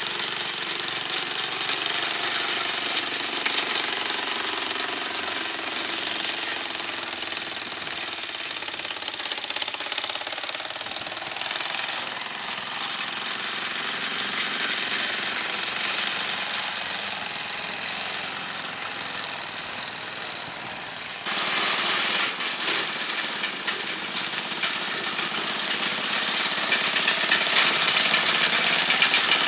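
Small engine of a motorised cargo tricycle running with a fast, even knocking beat; about two-thirds of the way through the sound cuts abruptly to a louder take of the same running engine.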